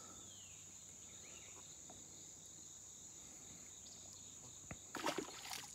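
Faint, steady, high-pitched insect chorus buzzing without a break. About five seconds in, a short cluster of brief knocks and rustles stands out above it.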